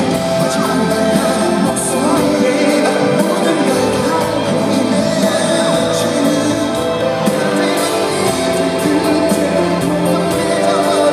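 Live pop song in concert: backing music playing with a man singing into a handheld microphone.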